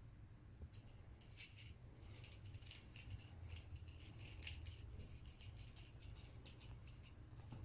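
Faint, irregular rattling of a feather wand cat toy as a kitten bats and grabs at it, over a low steady hum.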